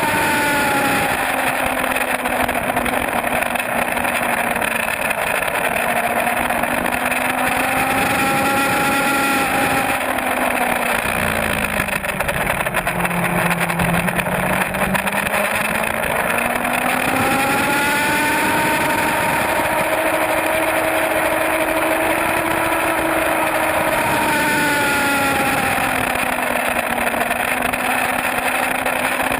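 Suzuki GSX-R750 inline-four sport bike engine at track speed on board the following bike, under constant wind noise. The engine pitch drops for a few seconds near the middle as it slows for a corner, then climbs again, with several shorter rises and falls as the rider works the throttle and gears.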